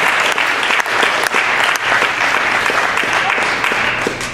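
Audience applauding: many hands clapping together, tapering off at the very end.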